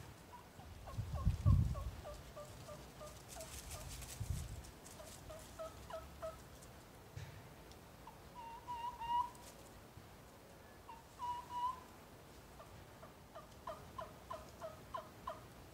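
A bocote-wood trumpet turkey call, a mouth-blown suction call made by Mark Prudhomme, played in quick runs of two-note yelps with a couple of longer drawn notes in between. A low thump, the loudest sound, comes about a second and a half in.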